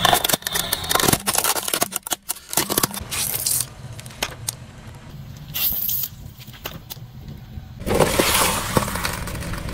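A car tyre rolling slowly over objects in turn: a hard plastic toy bus cracking and snapping in a dense run of sharp cracks over the first few seconds, then squashing tubes with only a few short bursts, and a cardboard box crushing with a loud continuous crunch from about eight seconds in.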